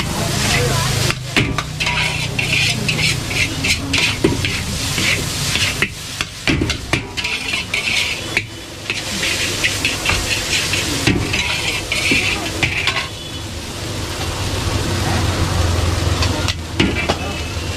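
Vegetable chow mein noodles sizzling in a large iron wok over a gas burner while being tossed and stirred with metal tongs and a spatula, with repeated scraping and clinking of metal against the wok.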